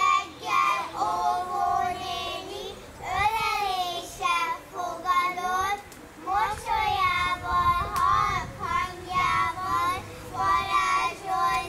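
Young children singing a song in high voices, in short phrases with brief pauses between lines.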